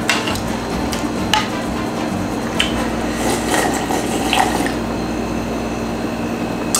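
Close-miked eating sounds from a bowl of rice-cake broth: a spoon clicks against the bowl several times, and wet slurping follows as the broth is drunk straight from the raised bowl.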